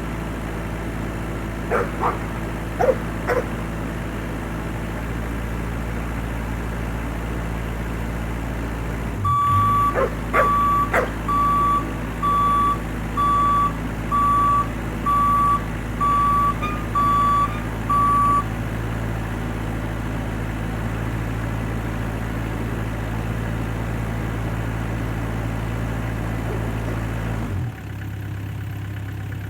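Bobcat E26 mini excavator's diesel engine running steadily, with its travel alarm beeping about nine times, once a second, partway through. A dog gives a few short barks near the start and again as the beeping begins, and the engine note drops near the end.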